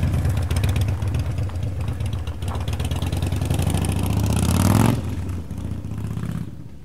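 Motorcycle engine running, rising in pitch as it accelerates and dropping off sharply about five seconds in, then fading away.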